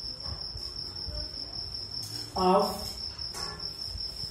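A cricket trills continuously on one steady high pitch. A man says a single word about two and a half seconds in, and a marker makes faint strokes on a whiteboard.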